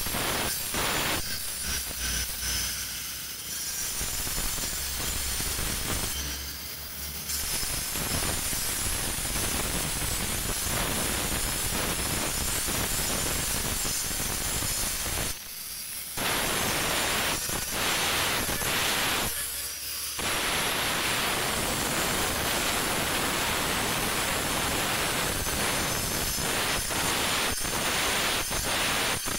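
Handheld angle grinder grinding a white stone elephant statue: a loud, steady hiss of the disc on stone. It breaks off briefly a little past halfway and again a few seconds later.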